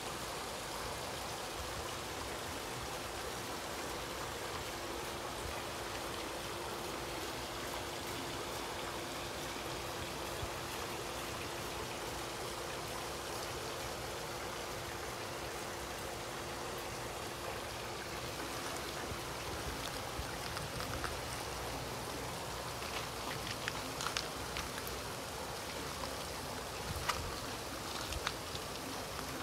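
Steady rain with water trickling through a pebble-lined garden channel. From about two-thirds of the way through, sharp close drips of water tick in among the hiss.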